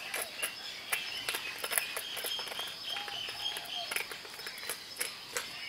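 Small scattered clicks and ticks of a lightsaber hilt's threaded pommel weight being handled and twisted, over a steady high chirring of insects.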